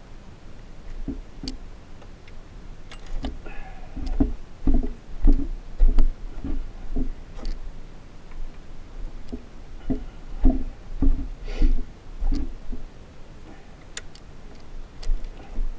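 Irregular clicks and knocks of a plastic cordless hedge trimmer being handled and adjusted, with occasional low thumps. The motor is not running.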